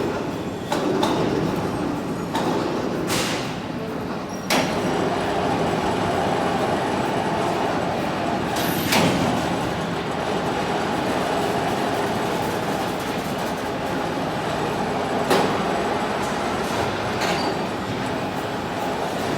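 Factory machinery running with a steady mechanical drone, broken by a few sharp metallic knocks and clanks.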